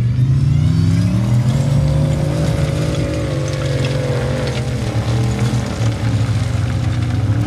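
Formula Offroad Unlimited-class buggy's engine running hard as it climbs a steep gravel hill. The pitch rises over the first couple of seconds, then holds at high revs with small wavers as the throttle is worked.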